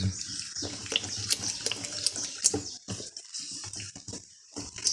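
A spoon stirring thick, wet green-corn pamonha batter in a bowl: an uneven sloshing stir with scattered taps and scrapes of the spoon, easing off near the end.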